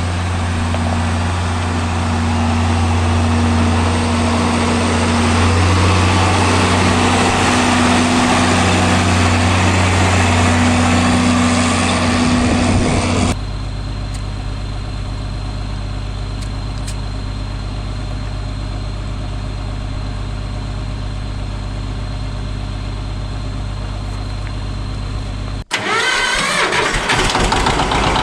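A machine engine running steadily in three cut-together stretches. The first is loud, a heavy hum with rushing noise. About halfway through it drops to a quieter, even idle with a faint high whine. Near the end it turns louder and noisier again.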